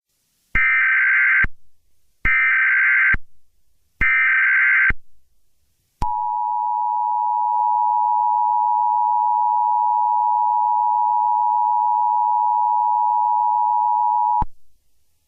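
Mock Emergency Alert System alert opening. Three short bursts of warbling SAME header data tone, each about a second long, are followed by the two-tone EAS attention signal, held steady for about eight seconds before it cuts off.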